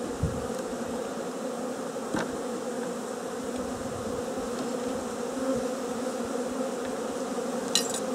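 Steady hum of many honeybees from a freshly installed package, buzzing in flight around the open hive. A couple of light clicks, about two seconds in and near the end, come from the wooden frames being pushed together with a hive tool.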